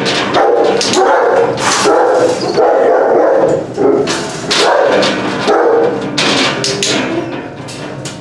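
Kennelled shelter dogs barking repeatedly and loudly at a handler passing their runs. The barking weakens near the end.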